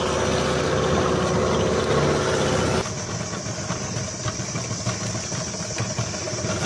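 Small boat's outboard motor running steadily, dropping abruptly to a lower, idling sound about three seconds in, with a few faint knocks after.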